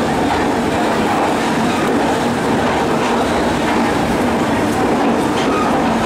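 Rajdhani Express LHB passenger coaches rolling past along a station platform: a steady running noise of the wheels on the rails.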